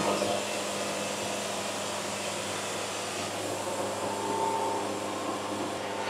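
Portable band sawmill running steadily between cuts: a low engine hum under the even rush of its dust-collection blower.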